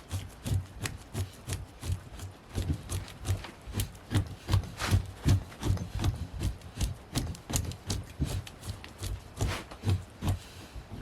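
Hand tool scraping the flesh side of a hide, taking off the membrane, in rapid repeated strokes about three a second, each with a dull thud and a short scrape.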